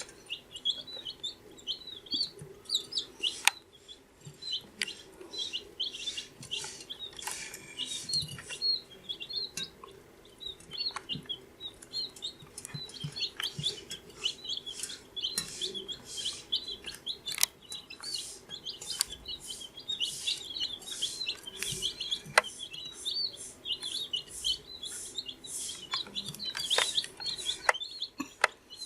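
A group of two-week-old chicks peeping continuously, many short high peeps overlapping, with occasional sharp clicks or taps.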